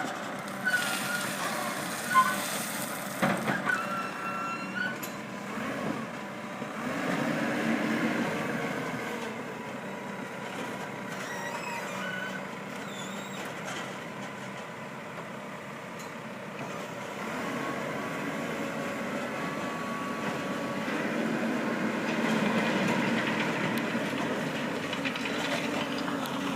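JCB backhoe's diesel engine running and working, its note rising twice as it takes load. Sharp clanks and short squeaks sound in the first few seconds.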